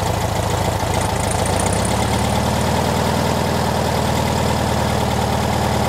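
1969 VW Beetle's air-cooled flat-four engine idling steadily, with its vacuum advance line plugged for a base ignition timing check.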